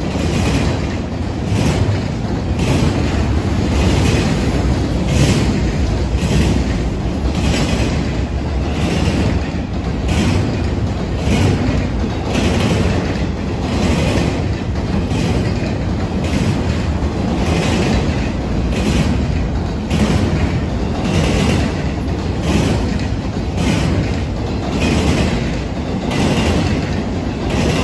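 BNSF double-stack intermodal freight cars rolling past with a steady low rumble of steel wheels on rail. Sharp wheel clacks repeat in groups every second or two as the car trucks pass.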